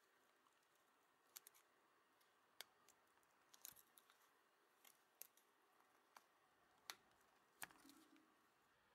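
A dozen or so faint, sharp clicks and light scrapes at uneven intervals, from a clear plastic tool working enamelled copper wire into the slots of an electric motor stator while a new starting winding is laid in.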